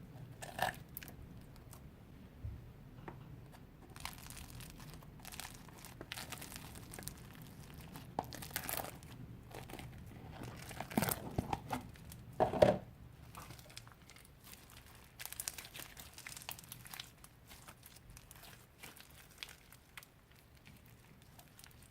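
Old slime being kneaded and stretched by hand, giving irregular sticky crackles, pops and squelches, with the loudest cluster of pops a little past the middle.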